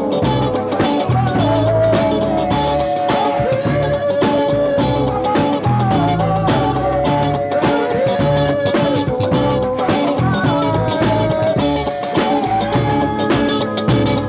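Band playing a world-beat groove: a wavering melodic lead line over a repeating bass pattern and steady drums.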